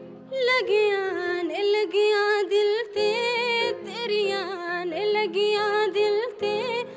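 A woman singing solo into a microphone, her voice gliding and turning in pitch through ornamented phrases over a held keyboard chord; the voice comes in about half a second in.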